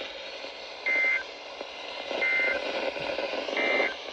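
Emergency Alert System end-of-message data code: three short, identical buzzy bursts of two alternating tones, about a second and a half apart, over steady radio static. The code marks the end of the weather radio alert.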